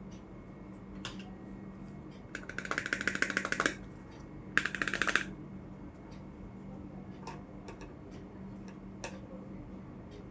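Small plastic toy kitchen pieces being tapped or scratched: two bursts of rapid clicking, the first over a second long and the second about half a second, among scattered single light taps.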